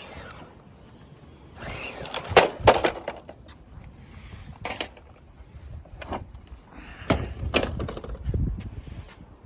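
Axial SCX10 RC rock crawler being driven over rough ground: a scrabbling, scraping noise with several sharp knocks as the tyres and chassis hit and climb obstacles, the loudest knocks about two and a half seconds in and again around seven seconds in.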